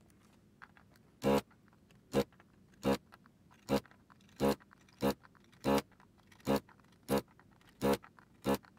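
ZD985 vacuum desoldering gun's suction pump buzzing in short bursts, about one every 0.7 seconds, as the trigger is pulled on each header pin in turn to suck out its molten solder.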